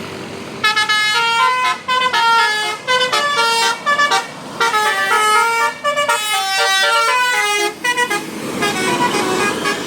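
A tour bus's Basuri telolet horn, a multi-tone musical horn, playing a tune of quick stepped notes for about seven seconds. Near the end the horn stops and traffic noise takes over.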